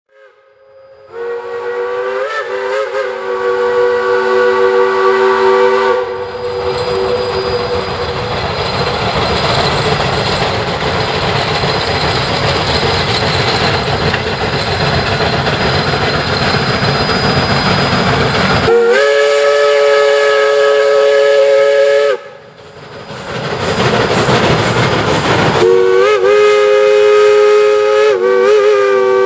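Shay geared steam locomotive No. 11 sounds its multi-tone steam whistle in three long blasts: near the start, about two-thirds through, and near the end. The last blast wavers in pitch. Between the blasts the locomotive works past with steady steam exhaust and running noise.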